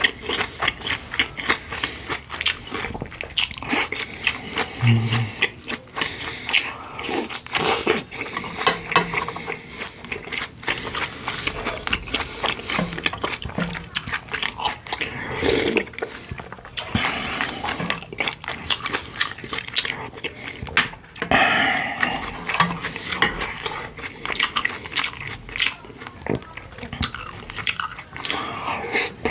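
Close-miked eating of pork bone soup and side dishes: continuous irregular chewing and biting, with many quick wet smacks and clicks.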